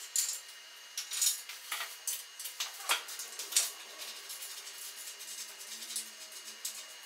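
Hands assembling a wooden frame: short, sharp clicks and scrapes as small fittings are worked into the wooden slats and the canvas is handled. There are several in the first few seconds and fewer after.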